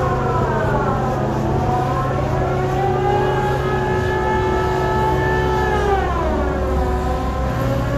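A crane's hoist drive whines while lowering a clamshell grab on its cable, its pitch sliding down, rising again, holding, then dropping near the end, over a steady low engine hum.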